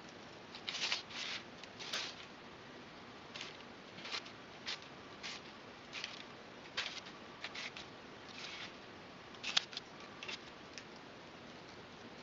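Hobby-knife blade cutting through a sheet of barley straw: a string of short scratching strokes at irregular intervals, the loudest about a second in and again near the last quarter.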